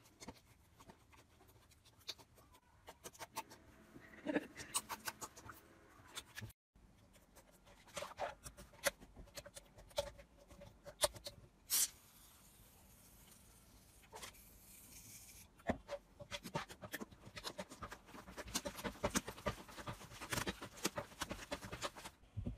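Hands squeezing and poking slime, giving irregular sticky clicks and little pops. About twelve seconds in, an aerosol can sprays foam onto the slime with a steady hiss lasting a few seconds.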